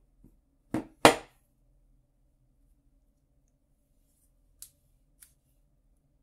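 Pliers clicking on a small metal jewellery chain and jump rings. There are three sharp clicks in the first second or so, the loudest just after a second in, then two faint ticks near the end.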